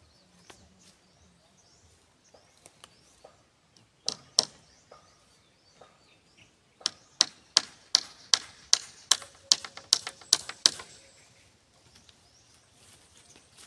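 Hand-tool strikes on bamboo: two single sharp blows about four seconds in, then a quick run of about a dozen blows, roughly three a second, that stops about eleven seconds in.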